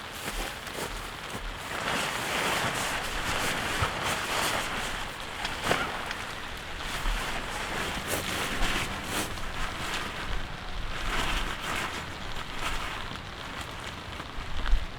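Light rain falling, with a few sharp ticks of single drops, and low puffs of wind on the microphone.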